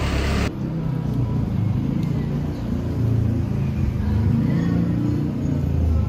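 A loud, low rumbling noise that goes on throughout, changing abruptly about half a second in.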